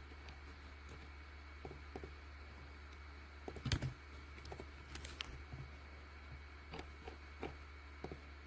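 Scattered light clicks and taps over a steady low hum, with a louder cluster of knocks a little before halfway.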